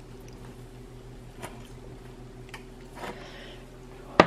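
A steady low electrical hum from a kitchen appliance, with a few faint clicks and one sharp knock near the end, which is the loudest sound.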